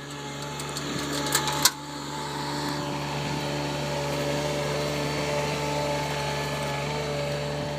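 The AL20DX loader's engine running at a steady speed with a constant hum and whine, and a few sharp knocks in the first two seconds.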